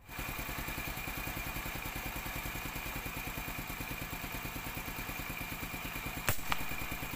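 Motorcycle engine idling with a steady, rapid pulse. About six seconds in comes a single sharp crack of an air rifle shot, followed a moment later by a fainter click.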